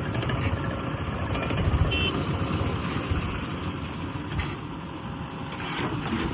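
Heavy diesel machinery running steadily with a low rumble, with scattered faint knocks and a short high squeak about two seconds in.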